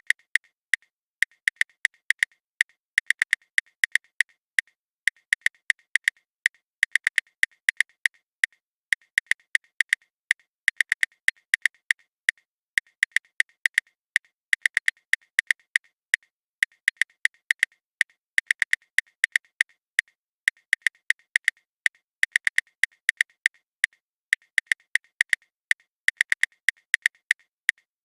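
Typing on a smartphone's touchscreen keyboard: sharp, high, light key clicks in quick runs of several taps, broken by short pauses.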